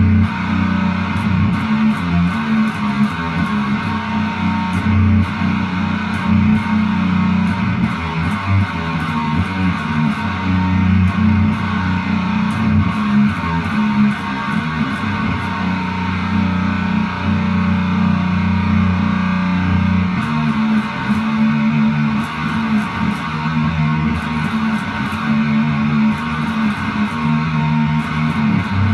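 Guitar-led music with a bass line, playing steadily throughout.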